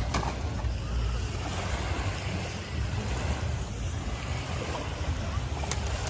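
Small sea waves washing onto the shore, with wind buffeting the microphone as a constant low rumble.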